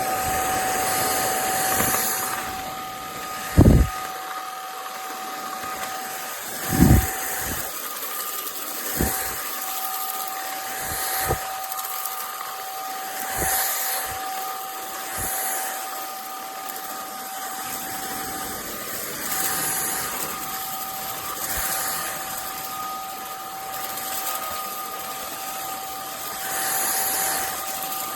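INTETURE cordless stick vacuum running, its motor giving a steady two-note whine over a hiss of air. A few short low thuds come through, the loudest about four and seven seconds in.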